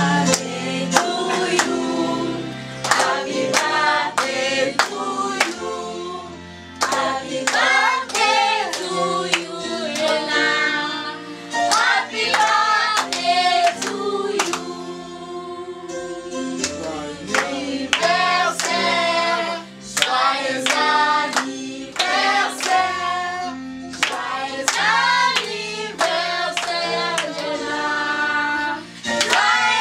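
A group of young voices singing together while clapping hands in a steady rhythm, about two claps a second.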